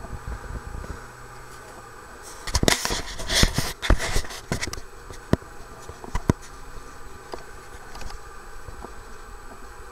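Outdoor wind noise on the microphone, gusting harder a few seconds in, with a few sharp clicks spaced about a second apart after that.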